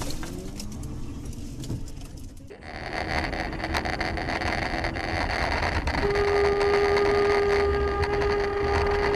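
Road and engine noise inside a moving car on a snowy street. About six seconds in, a single steady car-horn tone starts and holds for about three seconds.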